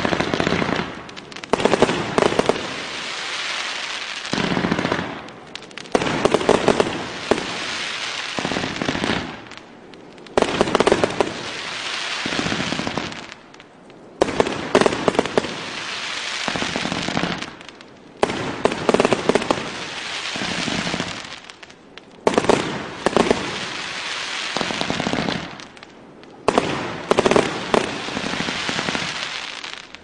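Kometa P7662 'Pacific Ocean' fireworks battery firing in waves about every four seconds. Each wave starts with a sudden run of sharp shots and bangs, then fades into a dense crackle of bursting stars before the next volley.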